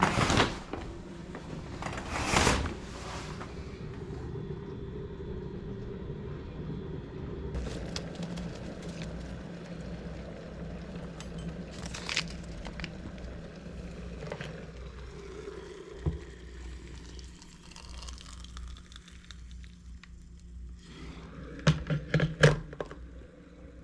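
Curtains swished open twice near the start. Then a small electric kettle heats with a steady low rumble and hiss, and hot water is poured onto a teabag in a ceramic mug. A metal teaspoon clinks against the mug several times near the end.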